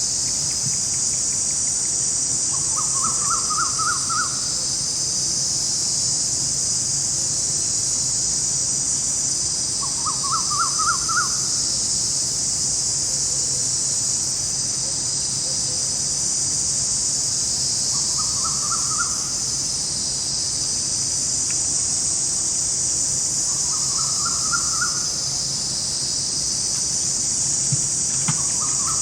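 Steady high-pitched chorus of forest insects. Over it a bird gives a short call of quick rising notes five times, about every six to eight seconds.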